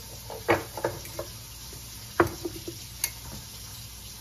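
A few light knocks and clinks of a Danish dough whisk against a glass mixing bowl of flour, the loudest about two seconds in with a brief ring, then a sharper single click near the end.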